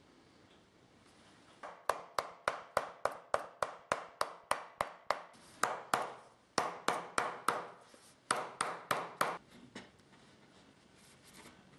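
Shoemaker's hammer tapping quickly along the edge of a leather shoe sole, about four sharp blows a second in runs with short pauses, then stopping after about nine seconds. This hammering presses the cemented sole down onto the shoe.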